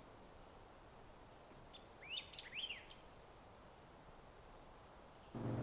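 Faint birdsong in woodland: a thin high whistle, a few short rising chirps about two seconds in, then a rapid, high, zigzagging song over the last couple of seconds.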